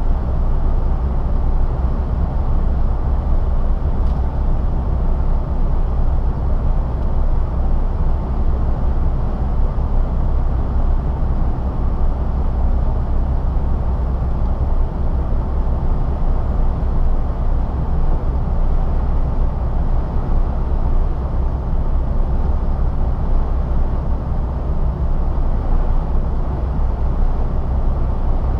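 Steady low drone of a MAN TGA truck's diesel engine and tyre noise, heard from inside the cab while cruising on the highway.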